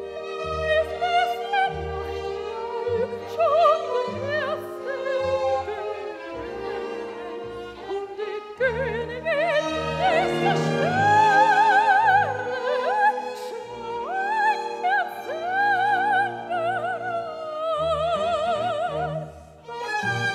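Soprano singing in operatic style, with wide vibrato and quick coloratura runs, over a string orchestra of violins, cellos and basses. The music thins out briefly near the end, then the orchestra comes back in.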